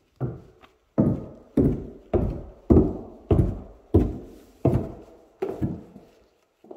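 Footsteps going down a carpeted staircase, dull thuds about every half second or so, the last few lighter as they reach the floor at the bottom.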